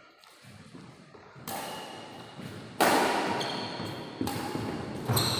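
Badminton rackets striking a shuttlecock in a rally: four sharp hits roughly a second apart, the second the loudest, each ringing out in the large hall.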